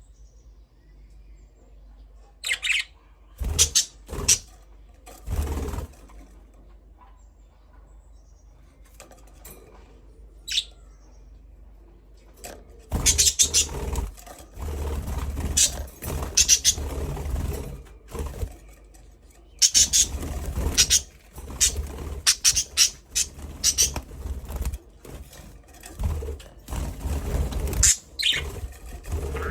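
Budgerigars chirping in short, irregular bursts, sparse at first and busier in the second half, with low bumps mixed in.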